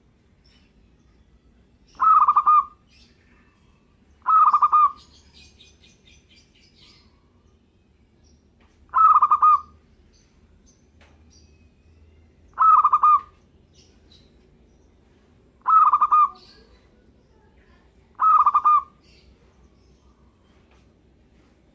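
Zebra dove (perkutut) cooing: six short, rolling coos pitched around 1 kHz, each about half a second, repeated every two to four seconds.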